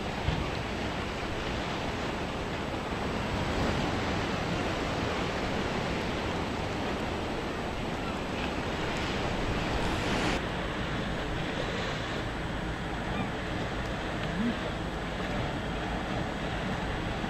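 Steady outdoor noise of wind and the sea, with wind on the microphone.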